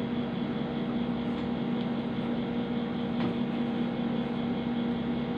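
Steady hum of a running household appliance: one constant low tone with a fainter higher one above it, over an even hiss.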